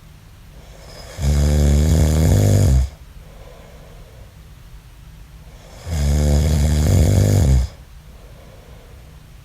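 A man snoring in his sleep: two long, loud snores about five seconds apart, with quieter breathing between them.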